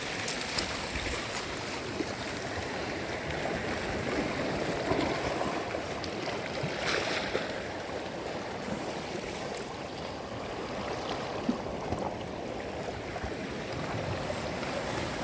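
Sea waves washing onto a sandy beach, a steady surf noise with gentle swells, one a little brighter about halfway through.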